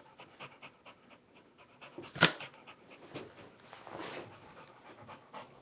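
A dog panting while mouthing a plastic water bottle, with small crackles of plastic throughout and one sharp crack about two seconds in.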